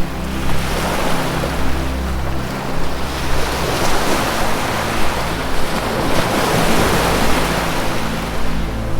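Ocean waves washing in and out in a continuous surging hiss, with low held music notes under them that shift every second or so.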